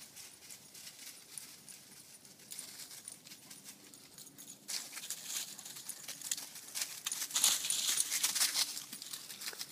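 Quick, irregular footsteps rustling and crunching through dry fallen leaves and grass, getting louder about halfway through as the running comes close.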